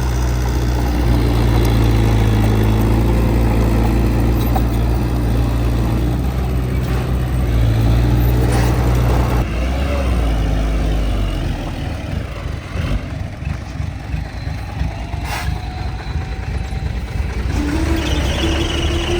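Heavy diesel engine of earthmoving machinery running steadily under load, dropping about halfway through to a quieter, lumpy idle, then starting to rev up again near the end.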